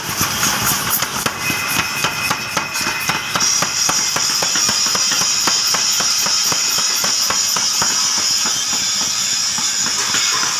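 Mechanical power hammer pounding red-hot steel on the anvil in a fast, even run of strikes, several a second, as a garden trowel blank is forged out.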